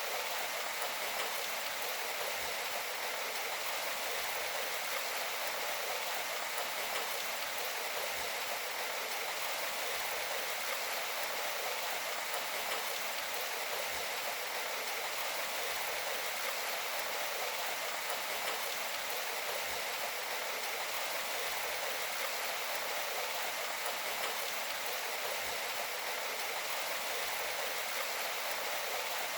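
Steady rainfall: an even, continuous hiss of falling water that does not change.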